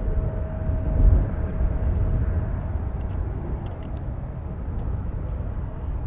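Strong wind buffeting the microphone in gusts, over the fading engine noise of a jet airliner, with a steady whine that dies away early on.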